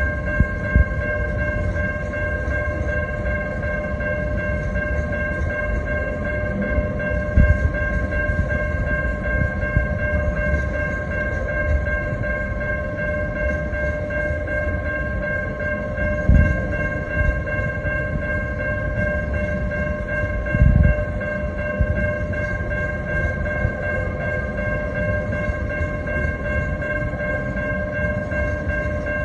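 Loaded container freight wagons rolling past over a level crossing: a steady low rumble of wheels on rail, with a few heavy wheel thumps. Over it runs a steady ringing of several high pitches that does not change.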